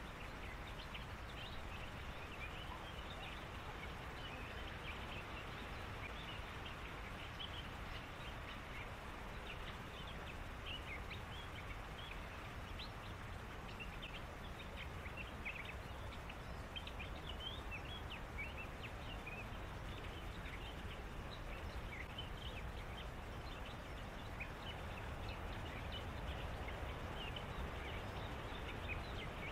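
Dense chorus of short, high chirping calls from small animals in reeds, overlapping continuously over a steady low rumble.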